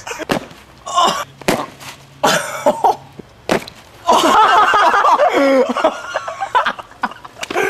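Four sharp cracks and smacks in the first few seconds, things breaking against a person, then a young man yelling and laughing loudly for about two seconds from about four seconds in.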